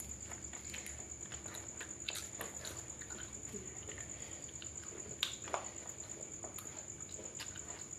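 Quiet eating sounds: people eating by hand off banana leaves, with small wet mouth clicks, chewing and handling of food, and a couple of sharper clicks about five seconds in.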